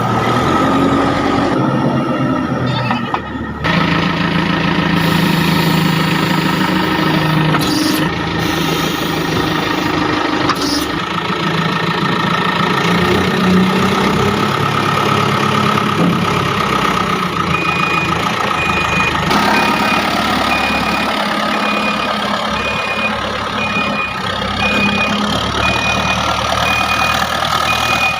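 Diesel engines of a JCB 3DX backhoe loader and Tata tipper trucks running steadily under work, their pitch shifting now and then. In the last third a short high beep repeats at an even pace.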